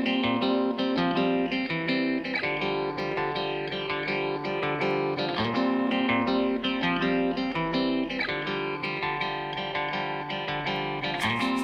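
Background music: plucked guitar playing a steady pattern of notes.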